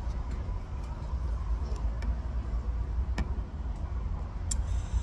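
Steady low outdoor rumble with a few short, sharp clicks scattered through it as the man handles the food and its paper wrapping at the table.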